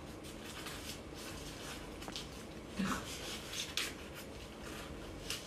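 Faint rustling and light clicks of chopsticks brushing and tapping over a duvet and paper banknotes, with a few sharper taps about three seconds in, near four seconds and near the end.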